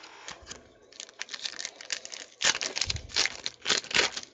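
Foil wrapper of a 2014 Panini Prizm football card pack being torn open and crinkled by hand: a rapid run of crackles that grows louder about two and a half seconds in.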